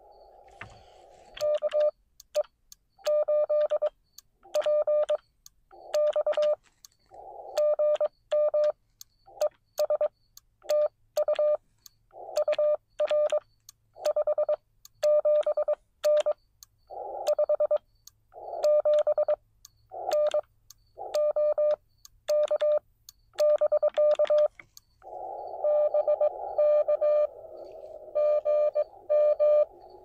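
Morse code sidetone from a Xiegu X6100 transceiver: a single steady beep keyed on and off in dots and dashes as the operator sends CW for about twenty seconds. Near the end the receiver's narrow-filtered hiss returns, with another station's Morse tone keyed inside it.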